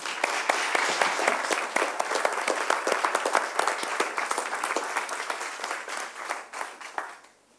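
Audience applauding: a dense patter of many people's handclaps that thins out and dies away near the end.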